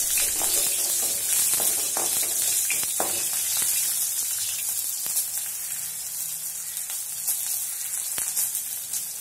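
Oil sizzling in a metal kadai as peanuts, shallots, dried red chillies and curry leaves fry, with a wooden spatula scraping and tapping the pan during the first few seconds. After that the sizzle goes on alone, easing slightly.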